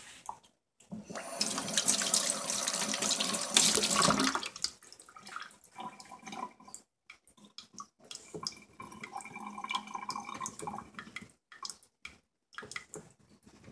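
Tap water running into a sink for about three seconds, then fainter, uneven handling sounds.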